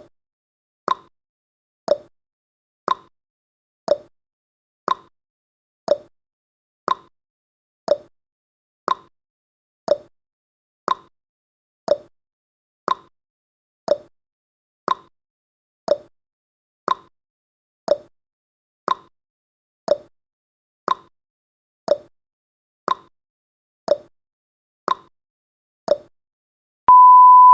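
Countdown timer's clock-tick sound effect, one tick a second, alternating higher and lower like a tick-tock. Just before the end a steady high beep starts: the alarm as the timer reaches zero.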